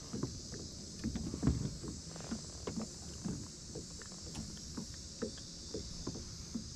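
Irregular light knocks and taps from handling a freshly caught small bass and the fishing line aboard a plastic kayak, over a steady hiss.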